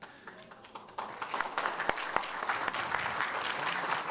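Audience applauding: a few scattered claps at first, swelling into steady applause about a second in.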